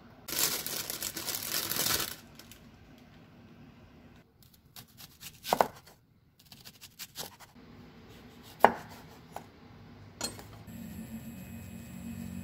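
Chef's knife cutting an onion on a wooden cutting board: a quick run of cuts in the first two seconds, then single sharp knife taps on the board. A steady low hum from the stove sets in near the end.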